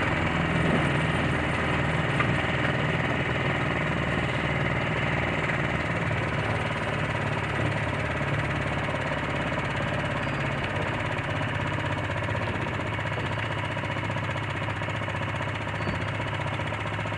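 Small sailboat's outboard motor running steadily at low speed.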